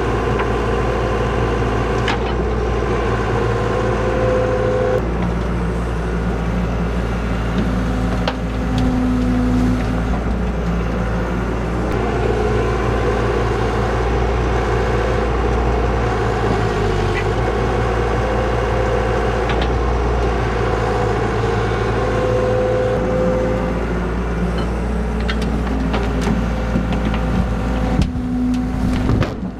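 Heavy equipment engine running steadily with a continuous low rumble and drone, its pitch shifting slightly now and then.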